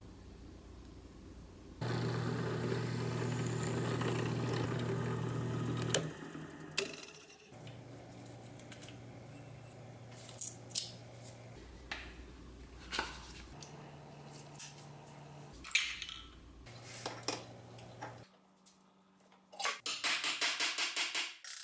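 Small metal parts of a pressed-steel toy truck clinking and tapping on a wooden workbench during reassembly, as chrome hubcaps are fitted onto the rubber wheels. Near the end comes a quick run of about eight taps from a ball-peen hammer on an axle held in a vise.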